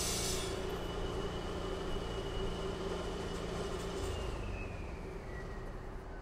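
Heavy construction machinery running with a steady hum, which the uploader takes for a machine cutting into the ground. A high hiss drops away near the start, and a thin whine then slowly falls in pitch over the last few seconds.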